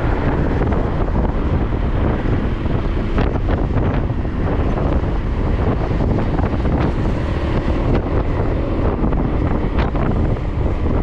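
Heavy wind rushing over a camera microphone on a road bike riding at speed, a steady loud noise with no break.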